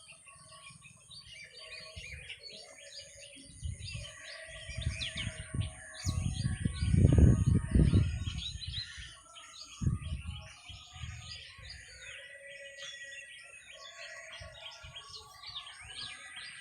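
A chorus of several birds chirping and calling over one another. A low rumble on the microphone swells in the middle, loudest about halfway through, then dies away.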